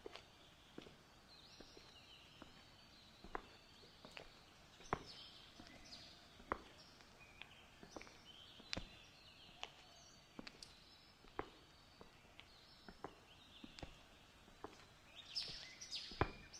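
Faint woodland ambience: small birds chirping and twittering, with light ticks at uneven intervals about once a second and a busier burst of chirps near the end.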